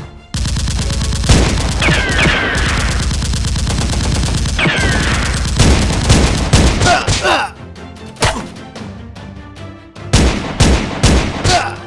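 Rapid automatic gunfire: a sustained burst lasting about seven seconds, followed after a short lull by a few separate shots near the end.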